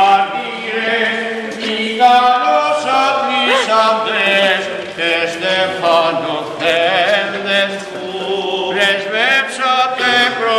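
Greek Orthodox Byzantine chant: a male voice sings a slow, ornamented liturgical line over a steady held low note.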